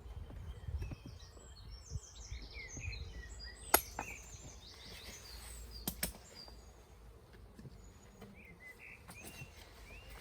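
Small birds chirping in short repeated calls over a low background rumble, with a sharp click about four seconds in and another about six seconds in.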